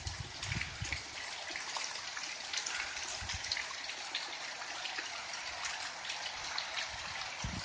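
Heavy hurricane rain falling in a steady hiss, with many small drops and drips ticking close by.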